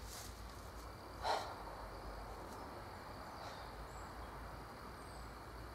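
Quiet woodland ambience: a steady background hiss with a faint, thin, high insect-like tone and a couple of brief high bird chirps. A single short noise about a second in is the loudest sound.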